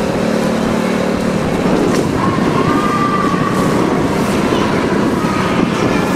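Loud, steady street noise of traffic, with a brief held higher tone about two seconds in.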